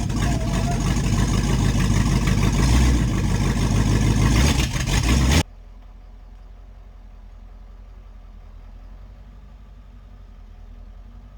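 An engine running loudly and steadily; the sound cuts off suddenly about five and a half seconds in and gives way to a much quieter, steady low hum.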